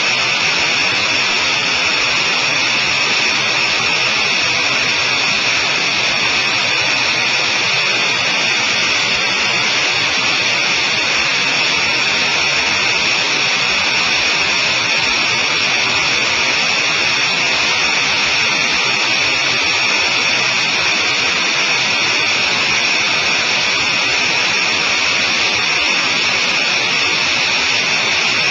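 Sonerai I light aircraft's engine and propeller running steadily in flight, a loud, unchanging drone with a high hum and wind hiss picked up by a helmet-mounted camera.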